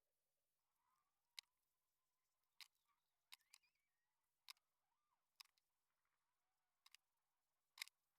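Near silence, broken by faint, sharp clicks coming irregularly about once a second.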